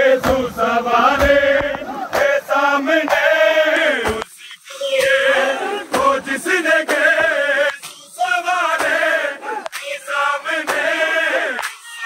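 Men chanting a Muharram noha together in a steady rhythm, with sharp open-handed strikes on bare chests (matam) marking the beat.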